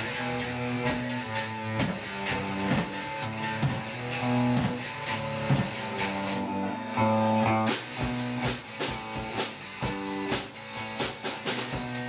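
Live rock band playing: electric guitars over a drum kit, with regular cymbal strikes that come faster and denser about eight seconds in.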